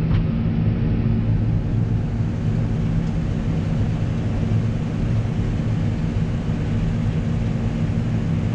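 Steady low diesel drone of a combine harvester and the tractor running alongside it during harvesting, heard from inside a machine cab.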